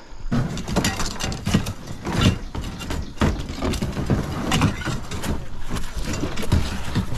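Close-up irregular scuffs, knocks and rustles of paddlers scrambling over rocks while portaging a racing canoe, picked up by a body-worn GoPro. The sounds set in abruptly just after the start.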